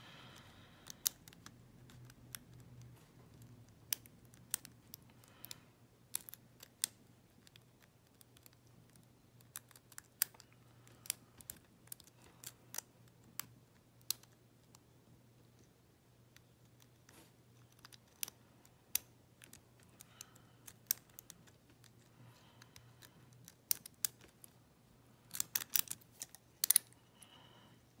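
Small, scattered metallic clicks and scrapes of a lock pick working the pin stack of an EVVA euro cylinder under tension, with a louder quick run of clicks near the end.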